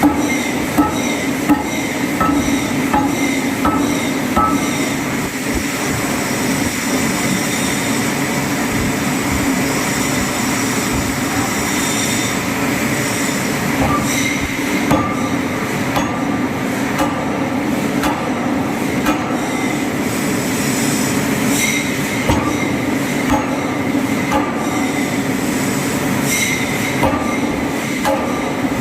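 Heavy forging hammer working a large roll forging: a steady loud machinery noise with repeated sharp metallic blows at an irregular pace, often one or two a second.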